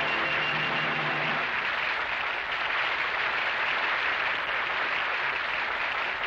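Studio audience applauding, a dense steady clatter of many hands, with the last notes of the band's music dying away about a second in.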